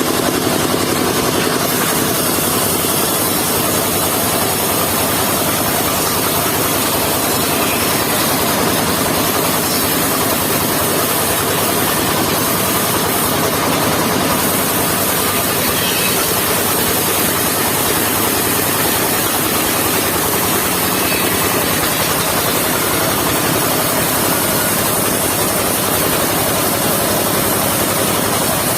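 Engine-driven mobile sawmill running steadily at a loud, even level.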